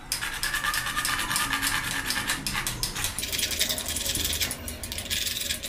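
Wood-cutting hand saw sawing across a thin, hard 2 mm laminate 'railway sheet', the teeth rasping with rapid back-and-forth strokes. The saw is cutting the hard sheet fairly well.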